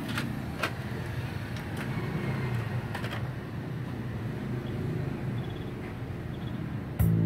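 Motorised 3-CD tray of a Victor MD300 mini hi-fi sliding shut, with the disc mechanism clicking a few times as it loads, over a steady low hum. Music starts suddenly from the speakers about seven seconds in.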